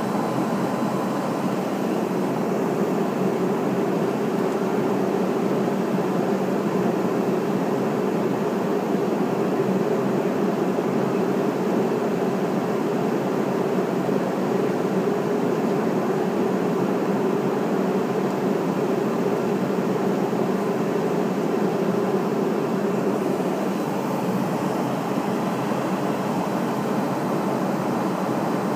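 Steady cabin noise of a McDonnell Douglas MD-83 airliner in flight, heard from a forward seat: the rush of airflow over the fuselage with the drone of its tail-mounted Pratt & Whitney JT8D turbofans. The low drone eases slightly near the end.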